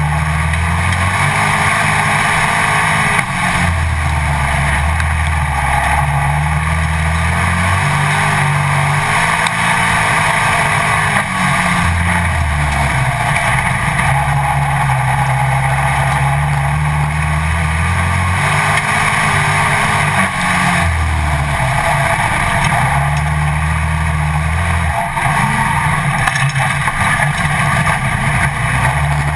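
Dirt-track Pro Stock race car's engine running at racing speed, heard from a hood-mounted camera with a lot of wind noise. Its pitch drops and climbs again every few seconds as the car lifts for the turns and accelerates down the straights.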